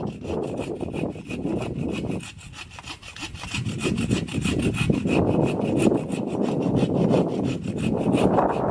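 Agawa Canyon Boreal21 folding bow saw cutting through a dead branch with quick back-and-forth rasping strokes, easing off briefly about two seconds in and then going on harder and steadier.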